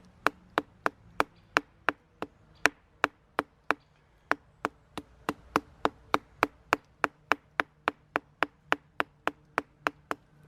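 Batoning: a wooden baton striking the spine of a cheap multitool's knife blade to drive it into a block of wood. The sharp knocks come steadily, about three a second.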